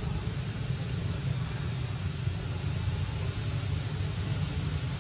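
Steady low background rumble with a faint hiss above it, unchanging throughout, with no calls or sharp sounds.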